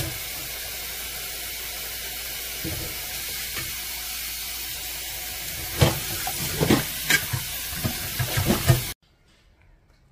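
Tap water running steadily into a stainless steel bowl while hands rub and squeeze wet loofah sponges, with irregular splashes and squelches from about six seconds in. The running water cuts off suddenly near the end.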